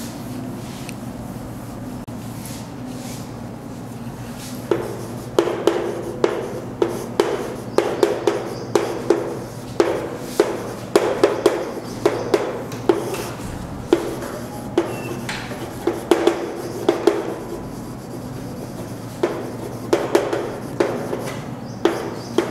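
Chalk writing on a chalkboard: starting about five seconds in, an irregular run of sharp taps and short scrapes, several a second, as letters are written, over a steady low hum.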